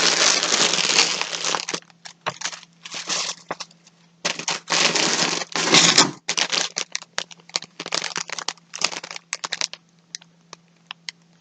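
Packaging crinkling and rustling as skeins of yarn are handled: two longer bursts of crumpling with many short clicks and taps between and after them.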